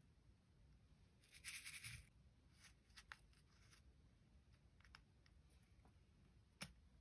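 Faint handling of a plastic nail-charm wheel: a short scraping rustle about a second in, then a few light plastic clicks, the sharpest near the end.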